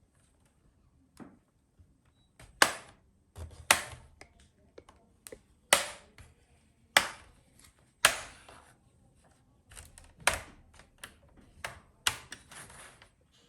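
Plastic retaining clips of a Lenovo IdeaPad 330's bottom cover snapping loose as the cover is pried off around its edges: a series of sharp clicks and snaps at irregular intervals.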